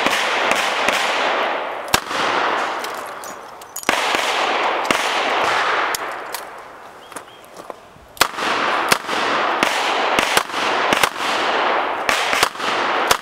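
Handgun shots fired in quick strings of sharp cracks, with a lull of about two seconds midway. Between the shots a broad rushing noise swells and fades.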